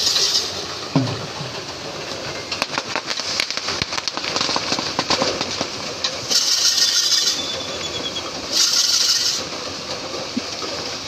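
A pair of racing bulls hauling a heavy wheeled wooden-and-iron frame round a circular dirt track. The rolling frame and the hooves make a continuous rumbling clatter, with a fast rattle of clicks in the middle and several bursts of hissing noise. A short shout comes about a second in.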